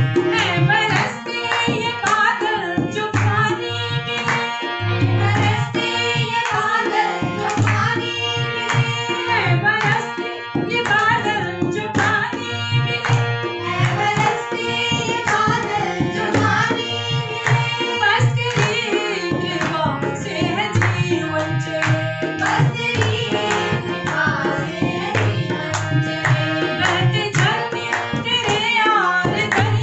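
A woman singing a Hindi devotional bhajan to a harmonium, with a dholak hand drum beating a regular rhythm under her voice.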